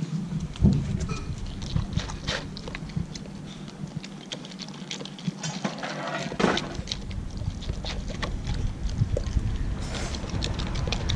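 A dog eating raw sheep offal from a plastic tray: wet licking, chewing and lip-smacking in irregular clicks and smacks.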